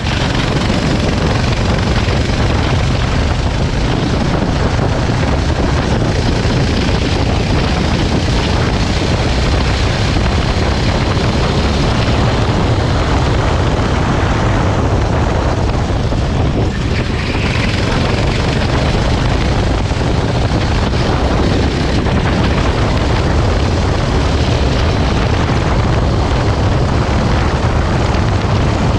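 Go-kart engine running steadily at speed, with wind buffeting the microphone.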